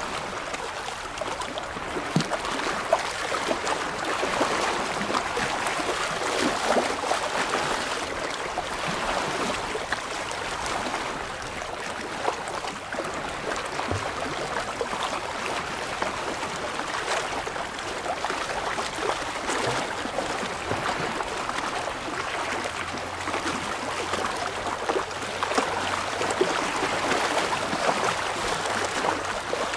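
Small waves lapping and washing against shoreline rocks: a steady wash of moving water with irregular little splashes.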